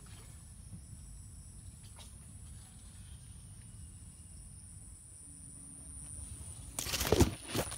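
Insects in the orchard droning at a steady high pitch over a low rumble, with two loud swishing, splashing noises close together near the end.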